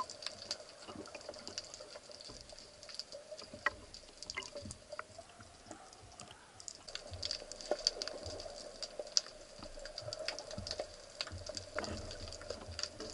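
Underwater ambience heard from a camera on a speargun: a continuous crackle of irregular small clicks over a faint steady hum.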